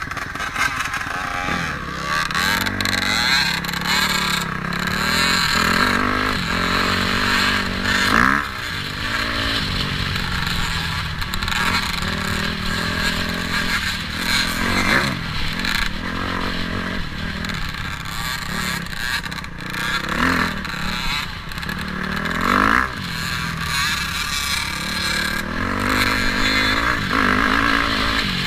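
KTM dirt bike engine being ridden hard over rough ground, heard from the rider's helmet. The revs climb and fall again and again as the throttle opens and closes, with a few sharp rev peaks.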